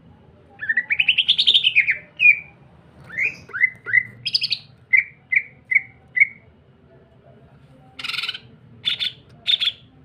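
Male green leafbird (cucak ijo) singing in full voice: a rising trilled phrase, a run of quick slurred whistles and five short clipped notes. After a pause, three harsher, buzzier calls come near the end.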